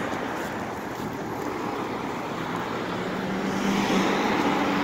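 Steady street traffic and vehicle engine noise beside a stopped city bus, with a low steady hum coming up about three seconds in.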